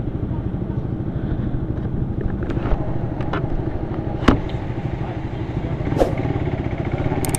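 Suzuki Raider 150 Fi's single-cylinder four-stroke engine idling steadily with a fast, even pulse. A few sharp knocks come over it, the loudest about four seconds in.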